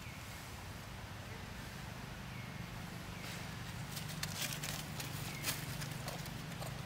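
Crackling and scrabbling of dry leaves and loose soil under a baby macaque's hands and feet as it walks off and climbs a dirt bank. The sharp crackles start about three seconds in, over a steady low hum.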